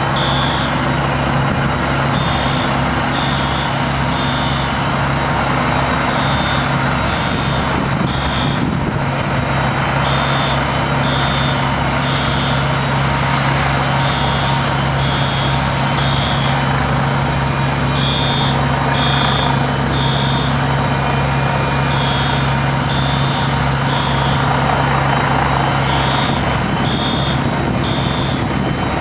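Vehicle engine idling with a steady low drone, and a high electronic beep repeating in short groups of about three every few seconds.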